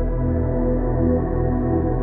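Ambient background music with long held chords over a deep bass.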